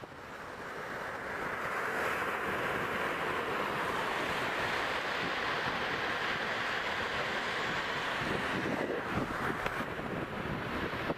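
Ocean surf: waves breaking and washing up a sandy beach in a steady rush. It fades in over the first couple of seconds, and a heavier wash comes in near the end.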